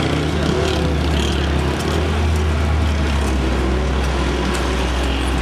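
Busy street traffic, with a steady low engine rumble from a vehicle running close by.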